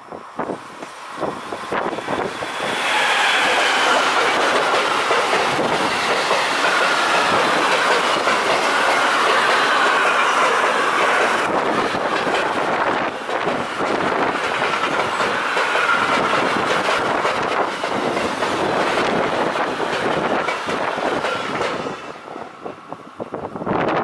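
Freight train of double-deck car-transporter wagons passing close at speed: loud rolling roar with wheels clattering over the rail joints and a thin squeal from the wheels, building about three seconds in and dying away near the end. Wind gusts on the microphone are heard before the train arrives and after it has gone.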